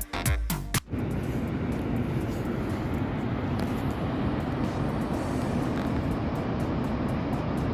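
Electronic dance music cuts off under a second in, giving way to the steady rushing noise of Niagara Falls, a dense, even wash of falling water.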